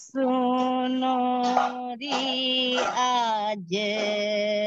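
A single voice singing long held notes with slow glides between them, opening a devotional kirtan, heard over a video call.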